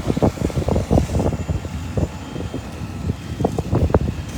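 Strong gusty wind buffeting the microphone: a low, uneven rumble with frequent irregular surges.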